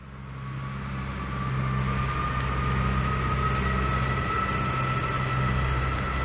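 Diesel railcar pulling out of a station: the engine runs with a low pulsing hum under a thin whine that rises slowly in pitch as it accelerates. The sound fades in over the first second or two.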